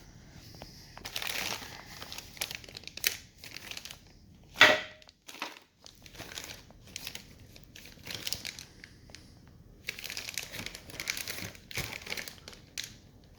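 Plastic packaging crinkling and rustling as a set of screwdrivers is handled and unpacked, with one sharp clack about four and a half seconds in.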